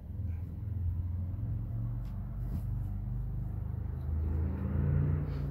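A motor vehicle engine running with a steady low rumble, growing a little louder about four seconds in.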